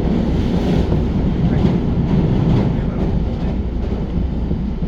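JR commuter train running at speed, heard from inside the car: a steady low rumble of wheels on the rails with a few faint clicks from the track.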